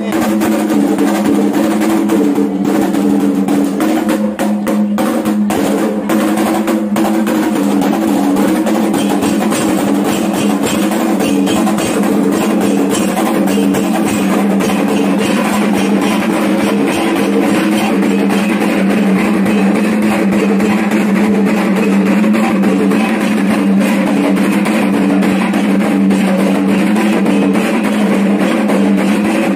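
Kendang drums beaten in a fast, continuous rhythm as accompaniment for a Dayak belian healing ritual, with steady ringing tones held under the drumming.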